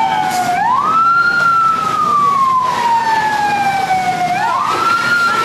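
Fire truck siren wailing: a long slow fall in pitch, then a quick rise back up, repeating about every four seconds, with the rises about half a second in and near the end.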